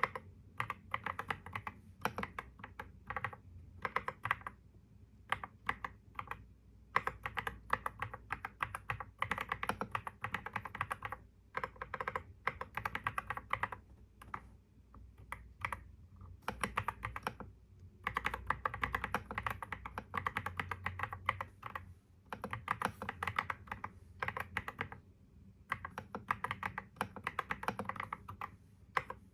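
Typing on a computer keyboard: runs of rapid key clicks broken by short pauses, over a faint low hum.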